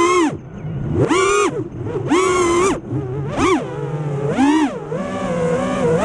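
FPV quadcopter's brushless motors whining through repeated throttle punches, the pitch sweeping sharply up and dropping back about once a second. Near the end the whine holds at a steadier, wavering pitch.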